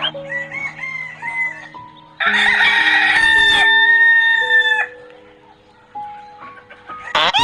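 A rooster crowing once in a loud call held for about two and a half seconds, over background music. Another loud animal call begins near the end.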